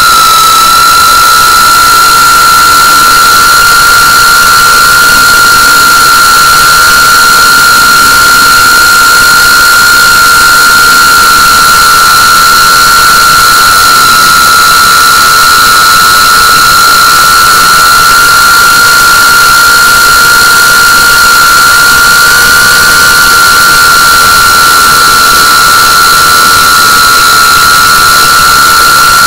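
A GEPRC CineLog35 3.5-inch cinewhoop drone's motors and propellers, heard from the drone itself, with one loud, steady high whine that rises slightly in pitch at the start as the throttle comes up.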